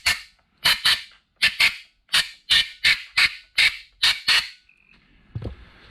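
Compressed-air blowgun fired in short blasts, mostly in quick pairs, more than a dozen in all, blowing debris out of a brake caliper's piston bores. The blasts stop about four and a half seconds in.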